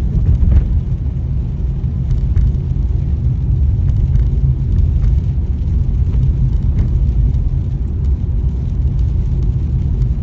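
Car driving at town speed: a steady low rumble of engine and road noise.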